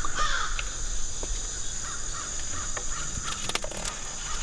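Crows cawing: a run of harsh calls, loudest at the start and fainter and sparser after, over a steady high insect drone. A couple of sharp clicks about three and a half seconds in.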